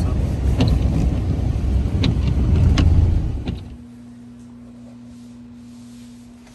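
Car driving, a loud low road-and-engine rumble heard from inside, with scattered light clicks; it cuts off suddenly about three and a half seconds in, leaving a quieter steady low hum.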